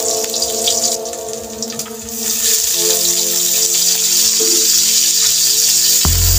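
Garlic sizzling in hot oil in a wok, the frying hiss growing louder about two seconds in as pieces of raw meat go into the oil. Background music with held notes plays throughout.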